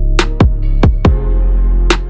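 Electronic background music with heavy sustained bass and a drum-machine beat.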